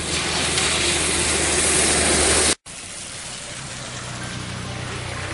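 Tyres hissing through standing water on a wet road, with the low hum of a van's engine, growing louder as the van approaches. After a sudden cut about two and a half seconds in, a quieter steady hiss of wet road and rain with a lower engine hum.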